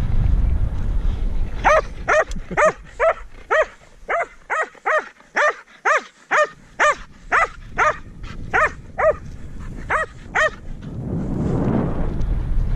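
Border collie barking excitedly, about eighteen short, sharp barks at roughly two a second. Wind rushes on the microphone at the start and again near the end.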